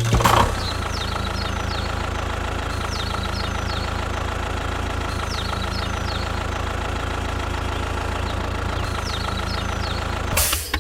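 A small engine idling steadily with a fast, even knocking beat. Short, high, falling chirps recur over it.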